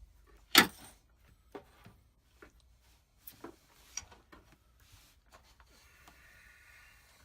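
A sharp knock about half a second in, followed by scattered lighter clicks and taps of objects being handled, with a faint hum near the end.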